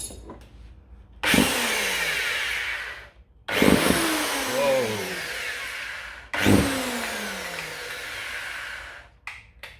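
Worx 230 mm (9-inch) angle grinder switched on three times in short runs of two to three seconds each, every run cutting off abruptly. It runs with a loud, harsh noise after being reassembled, and the owner thinks something is still wrong inside it.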